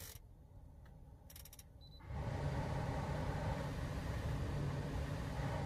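A few faint clicks from the heater control panel, then, about two seconds in, the Suzuki Swift's heater blower fan switches on and runs steadily: a rush of air with a low hum underneath.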